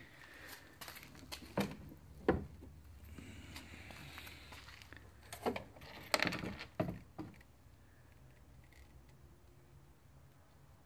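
Sharp clicks and knocks from handling a Riso duplicator colour drum in its hard plastic carrying case as it is gripped by its handle and lifted out. The loudest knocks come about two seconds in and again around six to seven seconds in, after which it goes quiet.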